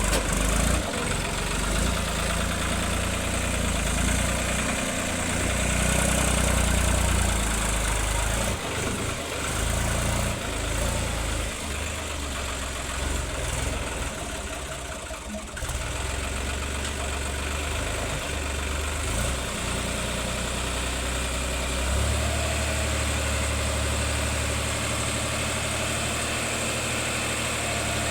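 Heavy machinery's engine running, its low drone strengthening and easing through the middle stretch and holding steady over the last few seconds.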